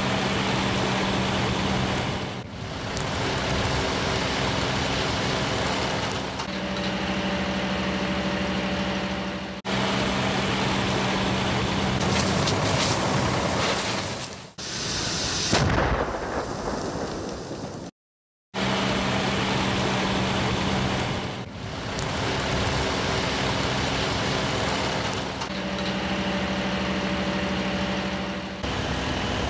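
Wildfire burning through forest: a dense, steady rush of flames and wind, with a steady low hum underneath in places. The sound changes abruptly several times between clips and drops out briefly about two-thirds of the way through.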